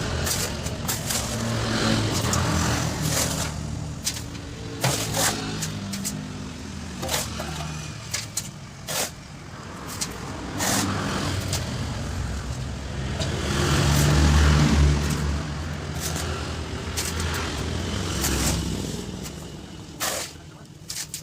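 A motor vehicle's engine running and rising in revs, loudest about two-thirds of the way through, with many sharp knocks, clanks and scrapes over it.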